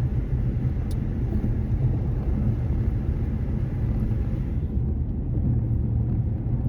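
Steady low rumble of a car on the move: road and engine noise, starting abruptly.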